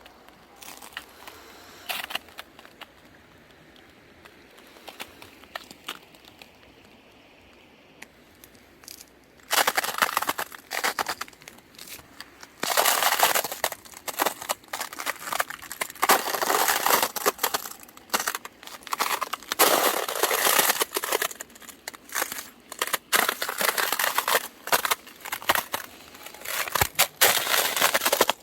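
Feet stepping on frozen valley-stream ice, crunching and crackling as it gives underfoot. A few faint clicks at first, then from about a third of the way in, loud dense crunching in bursts, one cluster per step.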